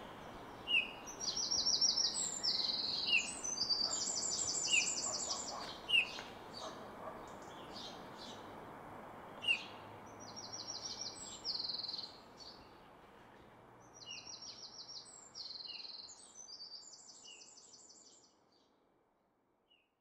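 Woodland songbirds singing: repeated high, rapid trilled phrases together with short chirps about once a second, over soft outdoor background noise, fading out near the end.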